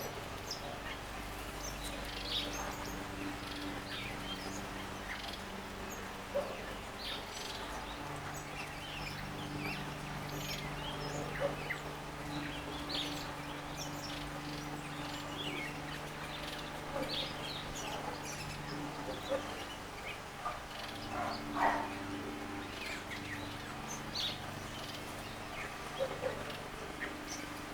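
Wild garden birds chirping and calling in short, scattered notes, one louder call about three-quarters of the way through, over a steady low hum.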